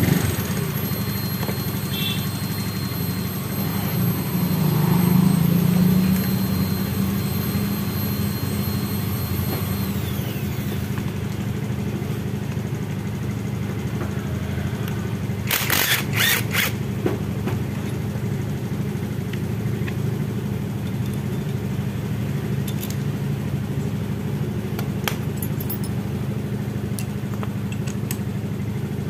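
A motor running steadily at idle, swelling a little around five seconds in. A short cluster of sharp strikes from a cordless impact driver on an engine-case bolt comes about sixteen seconds in.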